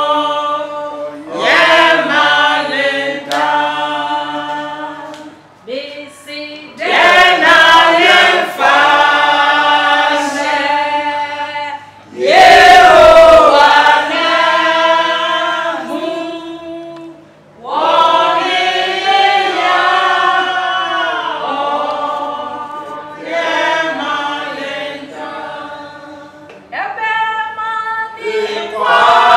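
A group of people singing together without instruments, in phrases of a few seconds broken by short pauses for breath.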